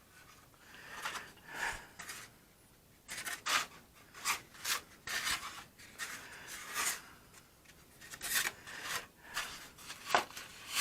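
Balsa wood being sanded by hand, with short irregular rubbing strokes at about two a second.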